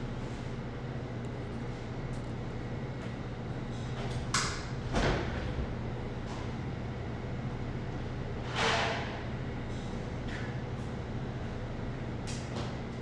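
Low, steady machine hum in a workroom, with a few short swishes about four and a half, five and nine seconds in.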